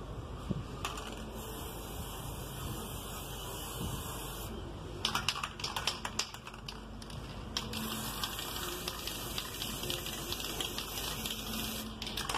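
Aerosol can of metallic copper spray paint hissing steadily as it sprays. About five seconds in, and again at the very end, a couple of seconds of rapid rattling clicks: the mixing ball knocking inside as the can is shaken.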